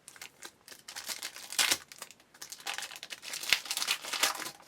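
Foil wrapper of a 2008 Bowman Chrome baseball card pack crinkling and tearing as the pack is opened, in irregular crackling bursts with a sharp click about three and a half seconds in.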